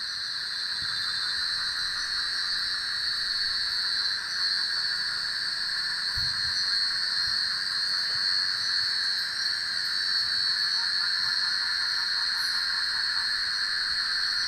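Steady high-pitched chorus of night insects, an even hiss-like trilling that does not let up, with a faint low thump about six seconds in.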